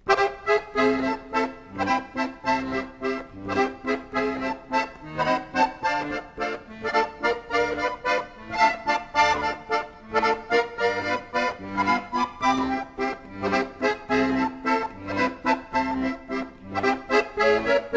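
Accordion music with a steady rhythm, starting suddenly.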